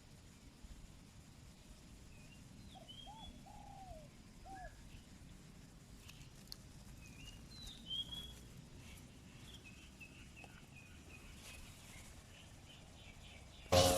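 Birds calling over a faint outdoor background: a few short low notes in the first seconds, then scattered higher chirps. At the very end a loud engine cuts in abruptly.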